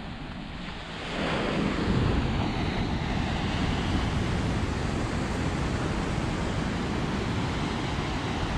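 Ocean surf breaking and washing on a sandy beach, mixed with wind rumbling on the microphone; the steady rushing noise grows louder about a second in and then holds.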